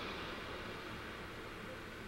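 Broad rushing engine noise of something passing, fading steadily away, with a low hum underneath.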